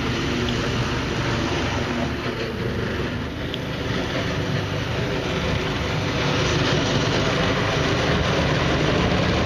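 A 1969 Jiger six-wheel ATV, re-powered with a 6.5-horsepower engine, running steadily as it drives.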